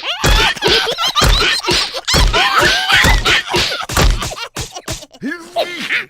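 Cartoon slapstick: about five heavy thumps roughly a second apart, mixed with high, squealing, chattering creature voices. Near the end the thumps stop and only a few sliding vocal noises remain.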